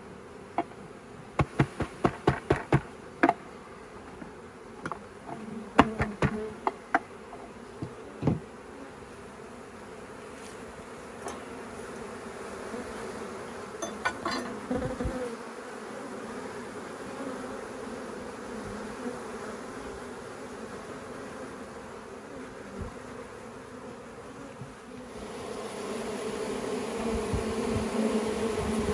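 A honeybee swarm buzzing with a steady hum as it is tipped from a plastic bucket into a hollow log hive, with a series of sharp knocks in the first several seconds as the bucket is knocked against the log. The buzzing grows louder near the end.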